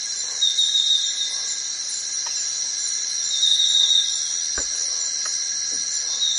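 Steady high-pitched chorus of forest insects, with a light knock about four and a half seconds in and a few fainter ticks from gear being handled.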